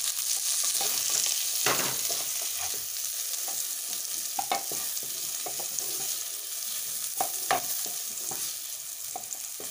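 Fried cauliflower florets sizzling in hot oil in a nonstick kadai, with a steady hiss, while a wooden spatula scrapes and knocks against the pan now and then as the florets are scooped out.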